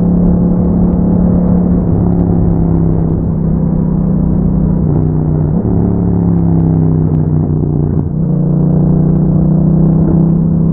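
Yamaha MT-07's 689 cc parallel-twin engine running at steady revs through an Akrapovic exhaust with a dB killer fitted. There is a brief dip in the sound about eight seconds in.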